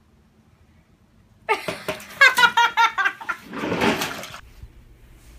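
A person laughing in a quick run of pulses, starting about a second and a half in, followed by a short rush of noise.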